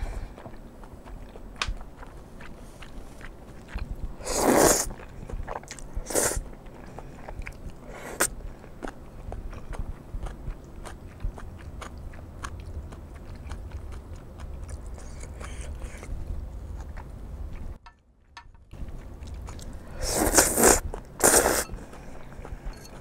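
A person eating stir-fried glass noodles close to the microphone: steady wet chewing with small mouth clicks, and several loud noodle slurps, about four seconds in and again near the end.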